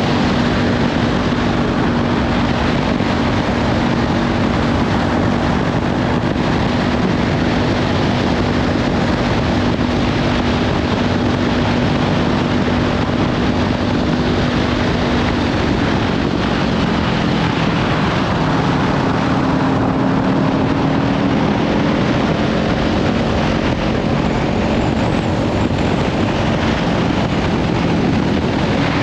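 Kawasaki Ninja 500 parallel-twin with a LeoVince slip-on exhaust, running at cruising speed under heavy wind noise on the microphone. The engine note holds steady for about half the time, then drops and climbs again.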